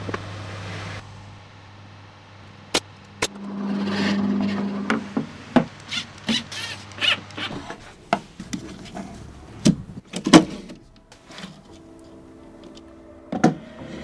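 A series of sharp knocks and clicks, with a short whirring swell about four seconds in, over a low steady hum that stops about halfway through.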